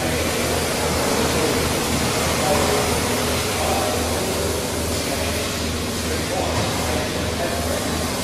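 Steady mechanical noise with a rhythmic low throb, about three beats a second.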